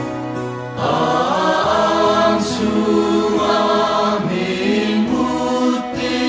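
Church choir singing a gospel song in Mizo in several-part harmony, holding sustained chords that change every second or so.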